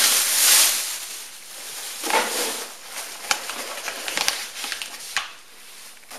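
A clear plastic bag rustling loudly as it is lifted out of a cardboard box, then scattered crackling and light clicks as hands rummage through polystyrene packing peanuts.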